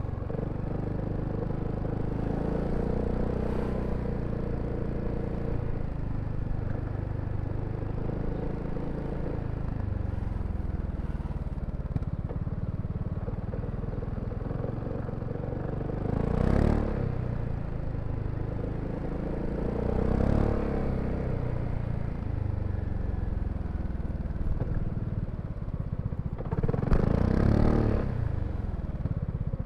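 BMW C400X scooter's single-cylinder engine running under way, its pitch rising and falling with the throttle, with three short louder swells, about halfway through, a few seconds later and near the end.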